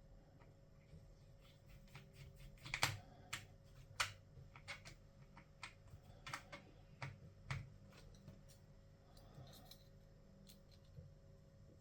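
Irregular light clicks and taps from hands working on an HP EliteBook 1040 G4 laptop, the loudest two about three and four seconds in.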